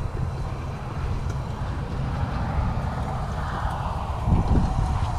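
Outdoor road-traffic noise with wind rumbling on the microphone, steady throughout, with one vehicle swelling past and fading in the middle.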